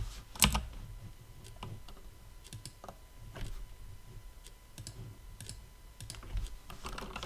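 Computer keyboard keys tapped in short, scattered runs of clicks, the strongest about half a second in.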